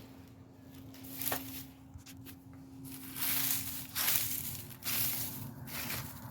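Rustling and crunching in several bursts, louder from about halfway in, with a faint steady hum underneath.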